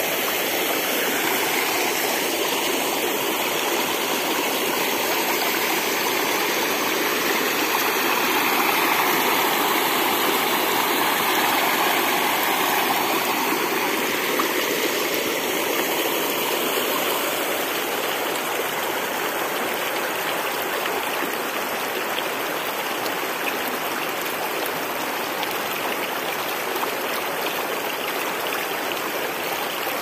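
Small rocky-creek waterfall, water washing over the rock and rushing steadily. The creek is running at a modest flow some days after heavy rain.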